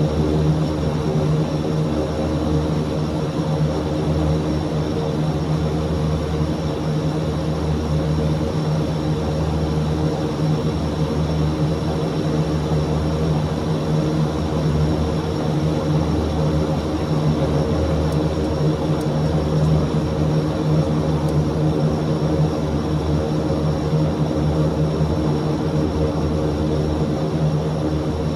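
Antonov An-26's twin Ivchenko AI-24 turboprop engines running steadily: a constant propeller drone with a strong low hum and a few higher steady tones, with no change in power.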